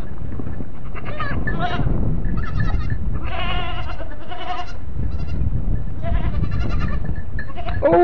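Goats bleating: several short, wavering bleats one after another, over a steady low rumble.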